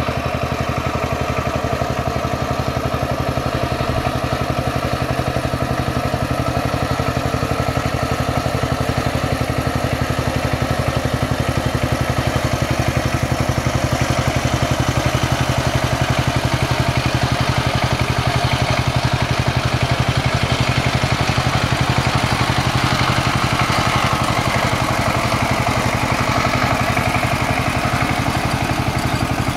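Kamco 12 hp power tiller's single-cylinder diesel engine running steadily under load as the tiller works through wet paddy mud.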